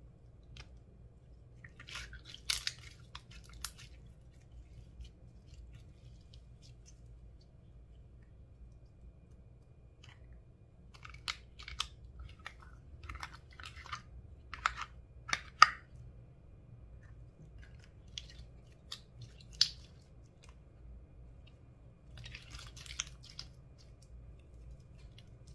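Slime and makeup items being handled, giving scattered crackles and sharp clicks in short clusters: about two seconds in, again through the middle stretch, once more a little later, and near the end, over a faint steady low hum.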